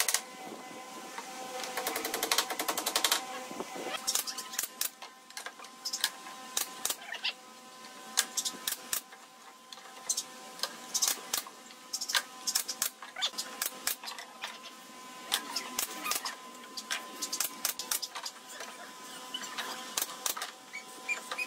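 Hammer striking nails into wooden pallet slats in irregular runs of sharp knocks, with a faint steady hum underneath.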